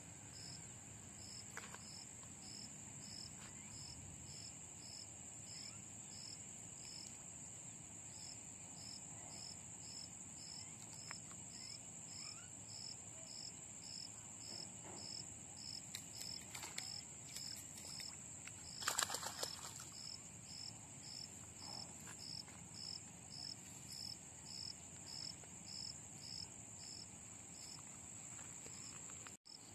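Insects, likely crickets, singing: a steady high hiss with a chirp repeating at about two a second. About two-thirds of the way through there is a brief, louder burst of noise.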